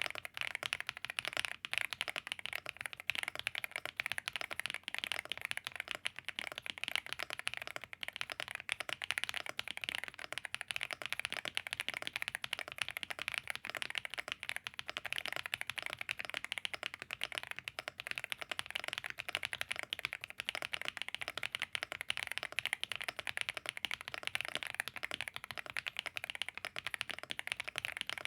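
Continuous fast typing on a stock ultra-budget custom mechanical keyboard with a plastic case, polycarbonate plate, Owllab Neon switches and KDA-profile keycaps: a dense, unbroken run of key clacks. The sound is hollow from the plastic case, with odd noises from the unmodded stabilizers.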